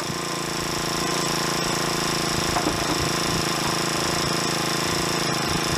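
A motor-driven machine running steadily with a constant pitch, rising slightly in level over the first second and then holding steady.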